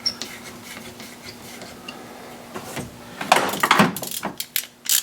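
Metal hand tools and engine parts being handled: scattered clicks, then a cluster of sharp clinks and knocks in the last two seconds, over a faint steady hum.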